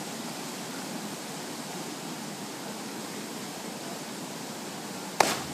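Steady rush of flowing water, then about five seconds in a single sharp splash as a cliff jumper hits the pool.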